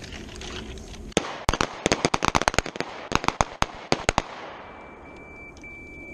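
A rapid, overlapping string of pistol shots from several shooters firing at once, about twenty sharp reports in three seconds, starting about a second in. A faint steady electronic beep follows near the end.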